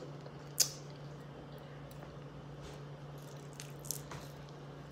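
Close-up eating sounds of fried chicken: chewing and the fingers pulling the meat apart, with one sharp click about half a second in. A low steady hum sits underneath.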